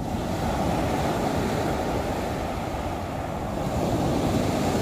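Rough sea surf breaking and washing up a sandy beach: a steady rushing wash of water that swells a little near the end.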